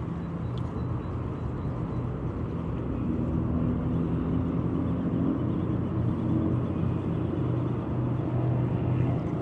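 Steady low rumble of wind on the microphone over choppy water, with a faint low hum underneath.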